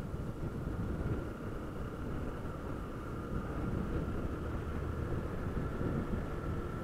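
Honda CG 160 Fan motorcycle riding at steady cruising speed: wind rushing over the microphone mixed with the single-cylinder engine running evenly, with a faint steady high whine above.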